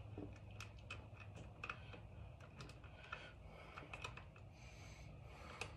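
Faint, irregular light clicks and taps of small metal parts: a battery terminal bolt and ring-terminal leads being fiddled onto a motorcycle battery's positive post.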